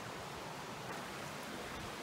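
Mountain stream running: a steady wash of flowing water.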